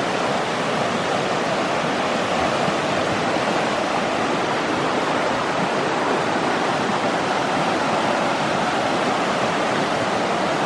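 Rocky creek rapids: water rushing steadily over stones in whitewater.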